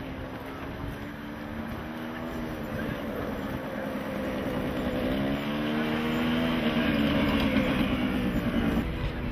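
A motor engine running with a steady pitched hum that drifts slightly up and down, growing louder over the second half and falling away shortly before the end.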